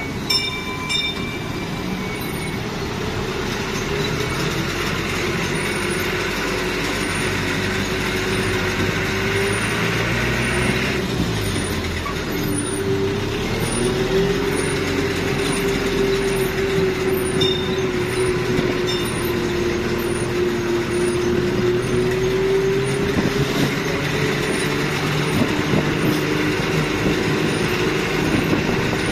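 A land train's engine running as it drives along, with steady road and wind noise; the engine note shifts a little before halfway through and then wavers slightly up and down.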